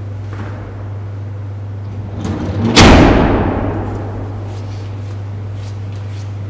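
A single heavy slam about three seconds in, with a short rising rumble just before it, ringing out for about a second in the echoing hall, over a steady low hum.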